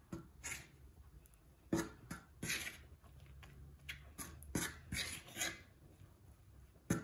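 A fork beating eggs into a well of flour on a wooden board, in irregular scraping strokes, a few with a sharper knock of the fork against the board. This is the first mixing of fresh egg pasta dough.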